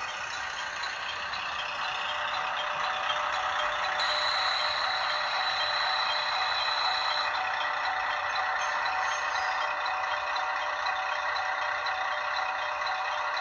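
Recorded diesel-railcar running sound from the DCC sound decoder of an HO-scale Kiha 40 model, playing through its small onboard speaker as the model pulls into the platform and stops. Regular light clicks run through it, and a steady high tone sounds from about four seconds in to about seven.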